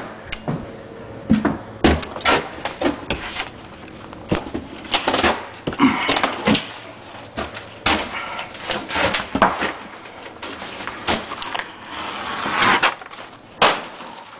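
Pieces of broken drywall (gypsum board) being handled and thrown: an irregular run of knocks and cracks, with longer noisy rushes about five to seven and twelve to thirteen seconds in.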